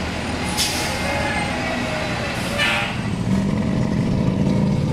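Street traffic as a school bus drives past, with two short hisses about half a second and two and a half seconds in. From about three seconds a steady low engine rumble takes over.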